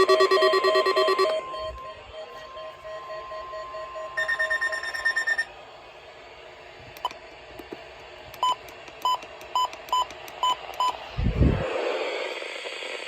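NOAA weather radios sounding their alert alarms as rapid pulsing beeps, which cut off about a second in and leave the steady 1050 Hz warning tone faintly for a few seconds. Another short burst of beeping follows around four seconds in, then five short beeps about half a second apart near the end, and a low thump.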